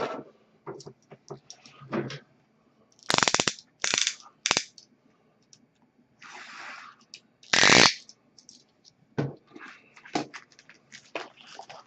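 Sealed cardboard box of hockey cards being torn open by hand: several loud ripping, crackling tears of wrap and cardboard, a soft scraping slide in the middle, and small rustles and clicks of handling between them.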